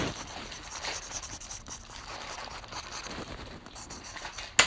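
Pencil scribbling back and forth on a paper envelope: a run of quick, scratchy strokes, with one sharp knock just before the end.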